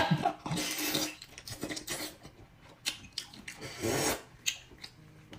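Wet slurping and sucking as shellfish meat and sauce are drawn from the shell by mouth, with soft wet mouth clicks between. The loudest slurp comes about four seconds in.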